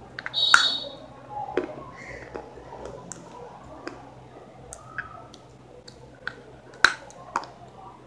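Close-up mouth sounds of biting and chewing something hard and brittle: a string of sharp crunches and clicks, the loudest crack about half a second in and another near seven seconds.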